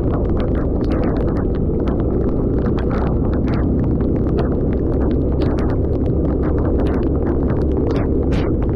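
Wind buffeting the microphone: a loud, steady low rumble, with many short irregular ticks scattered over it.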